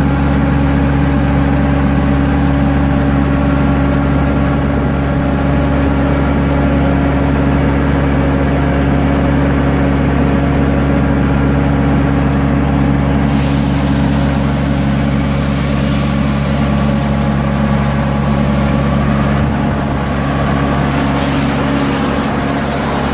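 The diesel engine of a Tamrock Ranger 500 hydraulic crawler drill rig running steadily at a constant speed, with a brighter hiss joining about halfway through.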